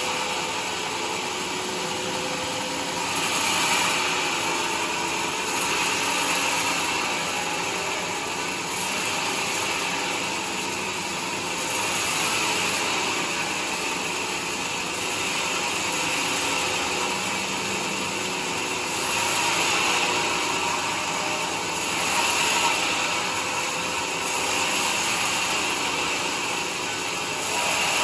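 Band sawmill blade cutting lengthwise through a large teak log as the carriage feeds it past: a steady, noisy sawing sound that swells and eases every few seconds.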